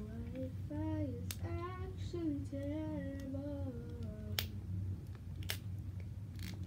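A girl humming a wordless, wandering tune for about four seconds, over a steady low hum of room noise. A few sharp clicks come from handling the toy ball and its wrapping.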